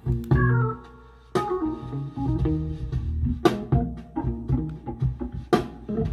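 Recorded music played through folded-horn loudspeakers with Lii Song PT-10 full-range drivers: plucked guitar-like notes over a bass line, with a few sharp drum hits.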